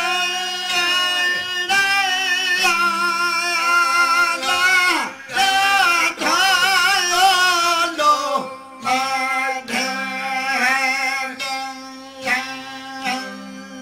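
Two men singing a Sindhi folk song in long, wavering phrases with vibrato, over a steady drone from long-necked lutes strummed upright, which repeats in a pulsing pattern. The singing breaks briefly twice.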